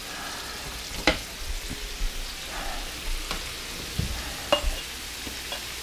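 Chicken and vegetable stir-fry sizzling in a pan, with a few sharp knocks and scrapes of a utensil against the pan as it is stirred.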